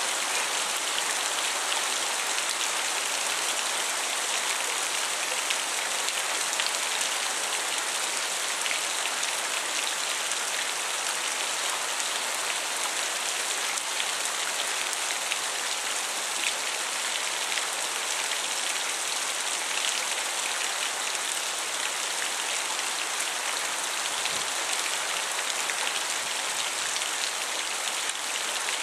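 Thunderstorm rain pouring steadily: an even hiss of rain with scattered sharp ticks of drops hitting close by.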